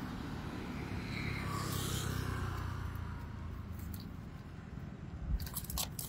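Low steady road rumble that swells for a couple of seconds about a second in. Near the end come quick wet slaps and scrapes as fish flop on the pavement and the cast net is handled.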